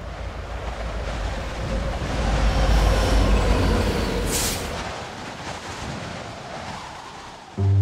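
Train rumbling past, swelling to a peak and then fading, with a short sharp hiss about four seconds in. Low plucked cello notes start abruptly near the end.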